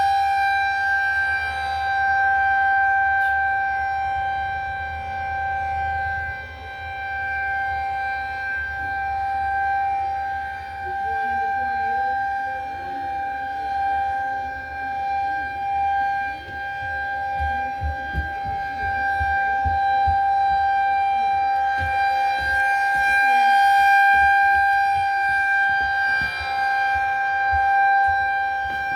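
Federal Signal 2001-130 rotating electromechanical outdoor warning siren sounding a steady, unchanging tone as a tornado siren test. Its loudness swells and fades slowly as the horn turns.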